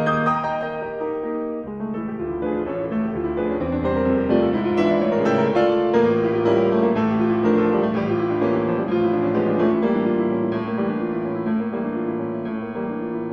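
Background piano music, a stream of soft notes over a steady bass line.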